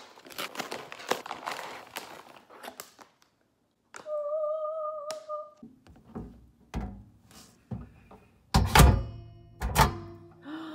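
Plastic bag of frozen chicken fries crinkling and rustling as it is opened and emptied, then a steady tone lasting about a second and a half. After that come knocks and two loud thunks, near the end, as a plate is handled in and around a microwave.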